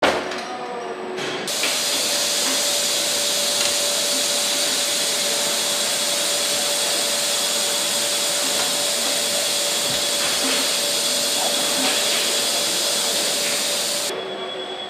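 Engine-assembly-line machinery running: a loud steady hiss over a constant hum. It cuts in sharply about a second and a half in and drops back to a quieter machine hum just before the end.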